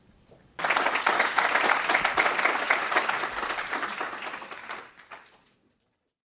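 Audience applauding. The clapping starts abruptly about half a second in and fades out over the last second before the sound stops.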